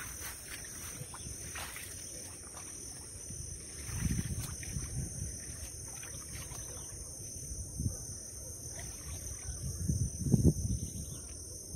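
Steady high-pitched drone of insects, with low rumbling gusts of wind on the microphone about four seconds in and again near the end.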